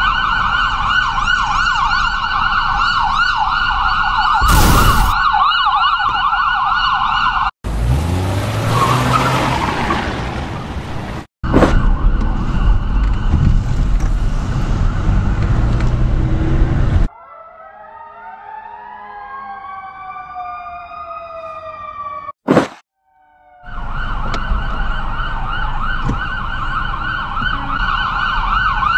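Sirens yelping rapidly and overlapping, cut through about five seconds in by a sharp bang. From about eight to seventeen seconds there is loud rushing noise, then a quieter stretch of rising and falling whistle-like glides and a short crack, before the yelping sirens return near the end.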